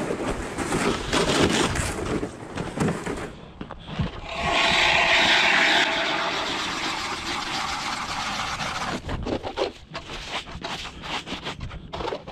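Footsteps crunching in snow, then an ice auger boring through lake ice with a loud, steady grinding scrape that fades over about four seconds, followed by a run of short knocks and scrapes.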